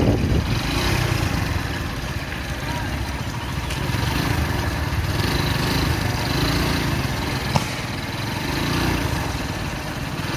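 An engine running steadily, with a single sharp bang about seven and a half seconds in: a firecracker set off to drive away a wild elephant.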